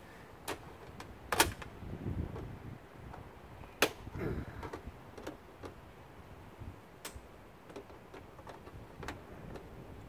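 Scattered sharp metallic clicks and knocks of hand tools working at a dishwasher's door hinge spring while it is disconnected. The two loudest come about one and a half and four seconds in.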